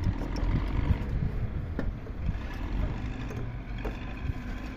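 A low rumble with a few light knocks, about two seconds in and again near four seconds, as a replacement air-conditioner compressor is handled and seated on its rubber-grommeted mounting base.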